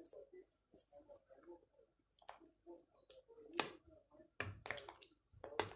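A spoon clicking and knocking against the soup pot as the vegetable soup is stirred: several sharp clicks, most of them in the second half.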